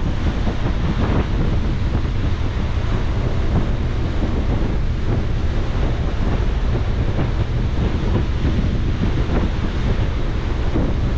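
Wind buffeting the microphone on the open deck of a moving car ferry, over a steady low rumble and the rush of water along the hull.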